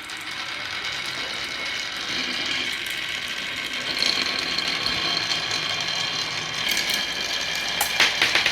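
Many marbles rolling and clattering down a marble run track in a dense, continuous rattle that builds steadily. It grows louder and busier about eight seconds in.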